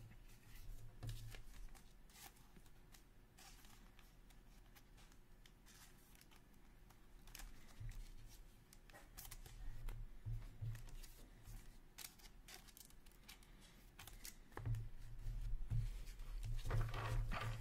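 Hockey trading cards being handled: cards slid against one another and clear plastic sleeves rustling, with scattered small clicks. About three seconds from the end the handling gets louder, as a stack of cards is tapped and squared up.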